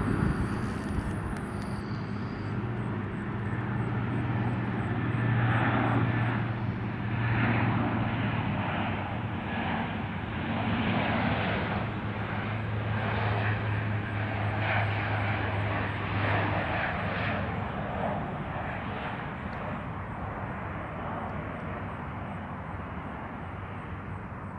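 Lockheed C-130 Hercules four-engine turboprop on its landing approach, its engines droning steadily. A low hum holds through most of the clip and drops away about two-thirds of the way in, and the whole sound slowly grows quieter toward the end.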